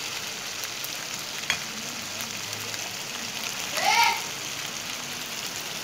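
Rice simmering in mutton stock in a wide pan, the liquid bubbling and sizzling steadily as it boils down. A single click about one and a half seconds in, and a brief high squeak that rises and falls about four seconds in.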